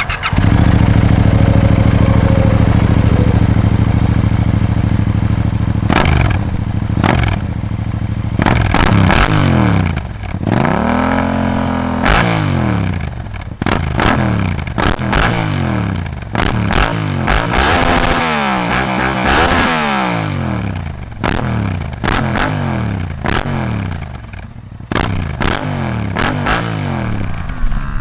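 Yamaha MT-07's parallel-twin engine breathing through an Akrapovic full carbon-fibre exhaust, dB killer fitted. It runs steadily at first, then is revved over and over, the pitch climbing and falling back about once a second.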